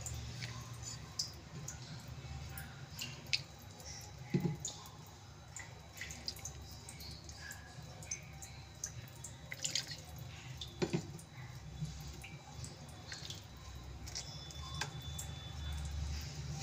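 Cooking oil poured from a steel measuring ladle into flour in a steel bowl, dripping and dribbling faintly, with scattered light clicks and two soft knocks.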